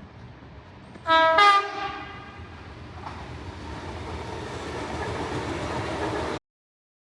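Train horn sounding a short two-note blast about a second in, the second note higher, followed by the growing rumble and rail noise of the train running through. The sound cuts off suddenly near the end.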